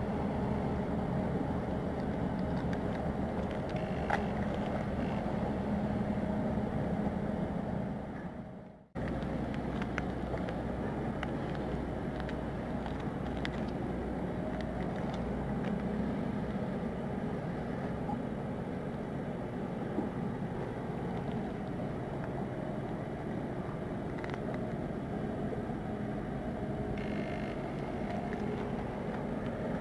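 Steady low drone of ships' diesel engines on the river, with a constant hum. The sound fades and cuts out briefly about nine seconds in, then the same steady drone resumes.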